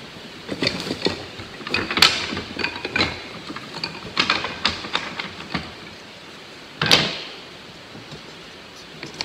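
Thin wooden beehive frame bars clattering and knocking together as they are handled and set into the slots of a wooden frame assembly jig, with one louder knock about seven seconds in.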